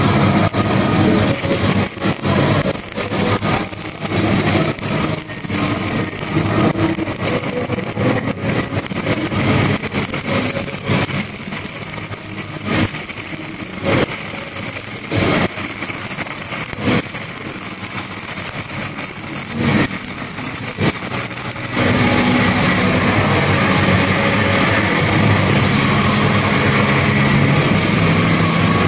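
Stick-welding arc from an 8010G cellulose pipeliner rod, run the wrong way, crackling with irregular sharp pops. About 22 seconds in it gives way to a steadier, louder hiss and hum.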